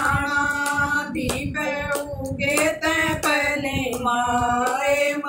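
Two women singing a Haryanvi devotional bhajan, holding long drawn-out notes. Their hand claps keep a steady beat underneath.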